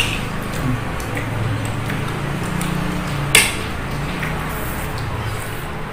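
A metal spoon clinking against a ceramic plate of food: a light click at the start and a sharper clink about three and a half seconds in, over a low steady hum.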